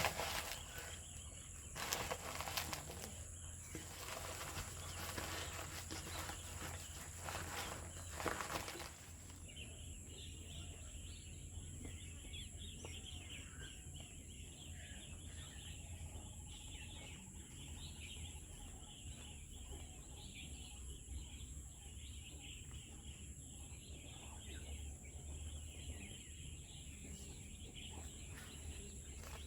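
Quiet outdoor farm ambience. For about the first nine seconds there is rustling and knocking; after that there is a steady background of birds chirping.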